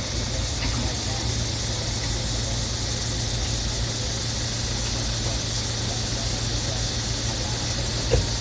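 Steady road and engine noise heard from inside a moving car: a constant low hum under an even hiss, with a brief tap near the end.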